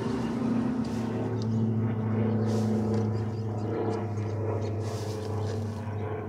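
A steady low engine drone, like a vehicle running at idle, with a few faint clicks and scrapes as fingers tug at the freshly taped seat-switch trim to test it.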